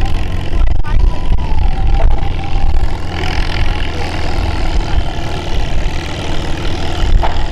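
Farmall tractor engine running steadily under load as it starts pulling a weight-transfer sled in a slow farm-tractor pull. A low, even engine note, with more hiss joining about three seconds in.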